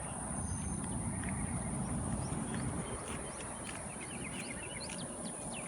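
Rainwater running steadily after heavy rain, with birds chirping and a constant high drone of insects.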